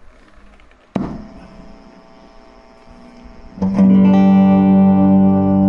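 Cort CR50 electric guitar played through a Cort MX15R amp: a single plucked note about a second in that fades, then a chord struck near the end that rings on loudly.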